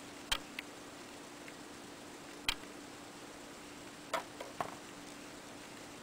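A handful of faint, sharp clicks and ticks, spaced unevenly, from fingers handling a metal sewing needle and nylon doll hair close to the microphone, over a faint steady low hum.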